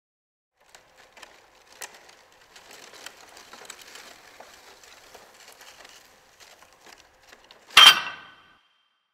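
Crumpled paper rustling and crackling as it is shifted, in many small irregular clicks. Near the end comes one loud, sharp hit with a brief ringing tone after it.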